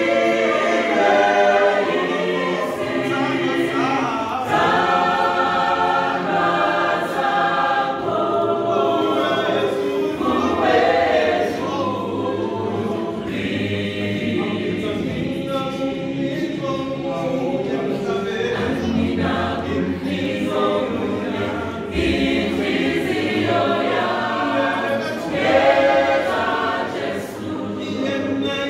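Mixed choir of men's and women's voices singing a gospel song in harmony, unaccompanied.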